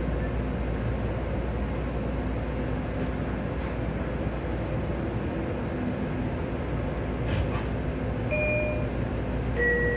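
Long Island Rail Road electric commuter train heard from on board while running, a steady rumble of wheels and motors on the track. A couple of sharp clicks come about seven seconds in, then two short tones near the end, the first higher and the second lower.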